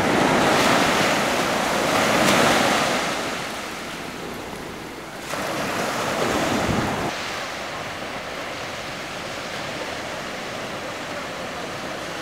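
Small waves breaking and washing up a sandy beach: steady surf, with louder washes in the first few seconds and again around six to seven seconds, settling into a quieter, even wash.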